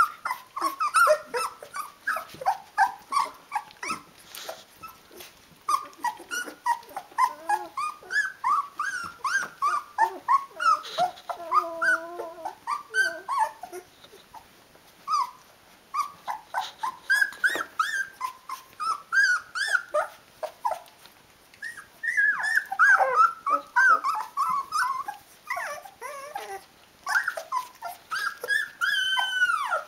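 Sixteen-day-old Rhodesian Ridgeback puppies whimpering and whining, short high calls coming several a second with a brief lull midway: the puppies calling for their mother to feed them.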